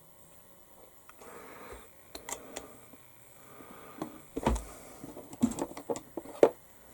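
Small plastic model-kit parts and tools handled on a work surface: scattered light clicks and taps, a few early and many more in the second half, the sharpest near the end.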